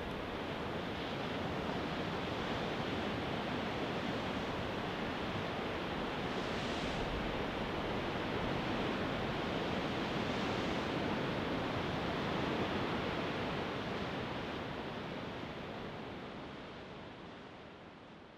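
Ocean surf on a sandy beach: a steady rush of waves, with two brief brighter surges about seven and ten seconds in. It fades out gradually over the last few seconds.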